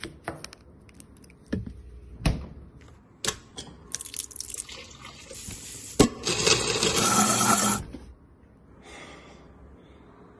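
A few sharp knocks of a knife cutting through sausages onto a cutting board, then about six seconds in a countertop blender switches on with a click, runs for about two seconds and stops.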